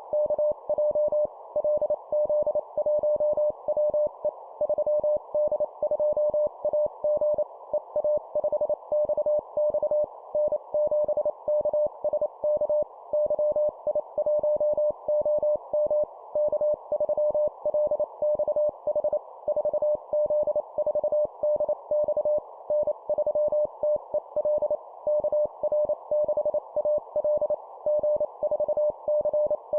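Morse code (CW) tone of about 600 Hz keyed on and off at 25 words per minute, spelling out a run of call signs, over a steady hiss.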